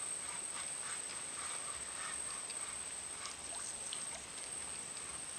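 Faint outdoor ambience: a steady high-pitched tone with soft, scattered ticks over a low hiss.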